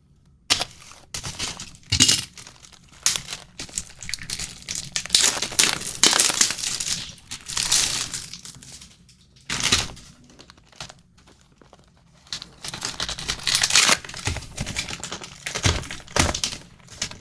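Wrapping on a sealed trading-card box crinkling and tearing as it is pulled open by hand, in irregular rustling bursts with a short lull in the middle.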